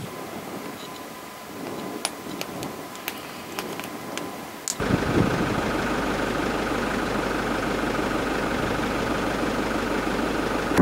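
Scattered sharp clicks over a low background, then, starting abruptly about five seconds in, a vehicle engine running steadily with a low hum.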